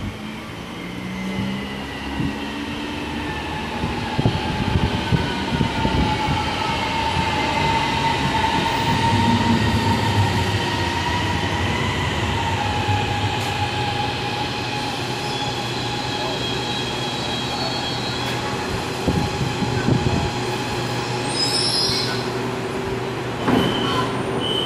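CSR Zhuzhou AMY electric train pulling into the station and slowing to a stop: a rumble of wheels on rail, with a motor whine of several tones that slowly falls in pitch as the train slows. Near the end a steady high tone begins.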